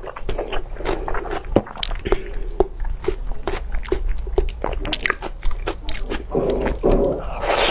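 Close-miked mouth sounds of a person chewing a large meatball: wet smacks and clicks at a steady chewing pace. About six and a half seconds in, and again near the end, there are louder, noisier spells as the next piece goes into the mouth.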